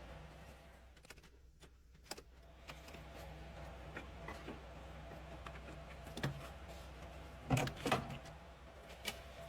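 Scattered light clicks and knocks from handling parts or tools, with two louder knocks close together near the end, over a steady low hum.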